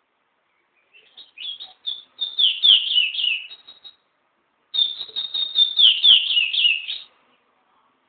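Small caged songbird singing two fast phrases of high notes with quick downward slurs, each two to three seconds long, with a pause of under a second between them.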